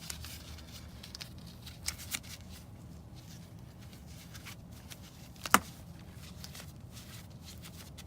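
Small doorbell-mounting hardware being handled: a few light clicks, then one sharp click about five and a half seconds in.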